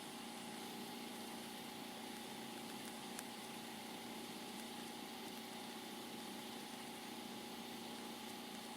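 Faint steady hum and hiss of a scanner recording between radio transmissions, with a small click about three seconds in.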